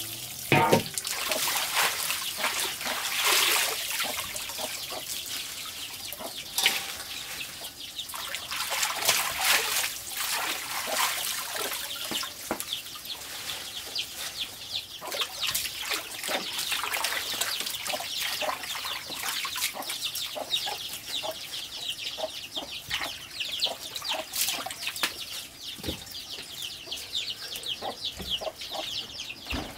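Water running from a hose into a plastic basin, with splashing as leafy greens are rinsed and rubbed by hand in a metal bowl of water.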